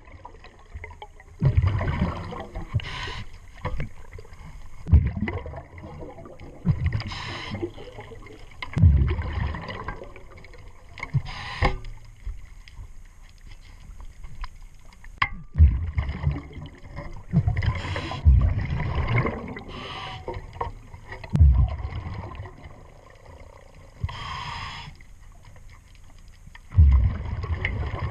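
Heard underwater: a scuba diver breathing through the regulator, with a burst of exhaled bubbles every four to six seconds. Between the breaths come low knocks and handling thumps from the work at the propeller.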